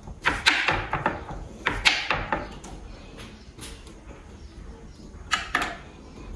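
Kitchen knife cutting a white onion on a wooden cutting board: a quick run of knife taps and knocks on the board, then a pause with a few faint taps, and two more strikes near the end.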